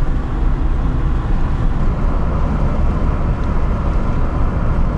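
Steady road and engine noise inside a moving car's cabin: an even low rumble with tyre hiss.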